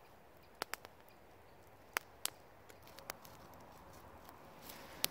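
Wood campfire burned down to embers, giving scattered sharp pops and crackles, about seven in all, while a stick rakes the embers aside.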